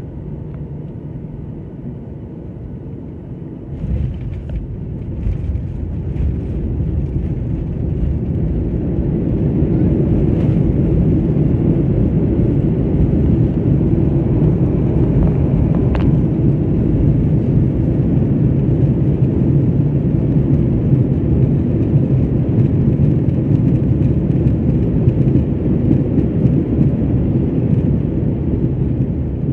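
Jet airliner landing, heard from inside the cabin: steady engine and air noise, then about four seconds in the wheels touch down with a sudden jolt and rumble of the runway. The noise builds to a loud steady rumble as the plane brakes, typical of reverse thrust after touchdown, and eases off near the end as it slows.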